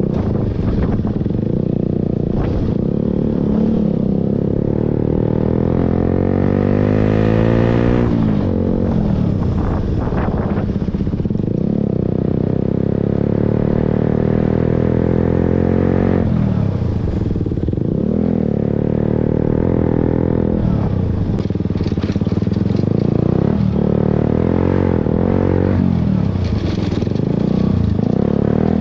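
KTM Duke's single-cylinder engine pulling the bike along a rough dirt track, its pitch climbing as the throttle is opened and dropping each time it is closed, again and again.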